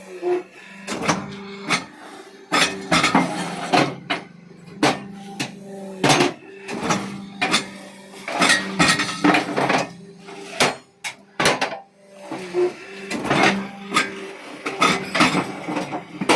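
Irregular knocks and clinks of hard blocks and tools being struck and set down during construction work, with a steady low hum running underneath.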